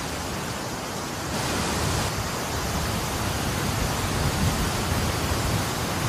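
A steady, even rushing noise with no tone or rhythm, stepping up slightly in level about a second in.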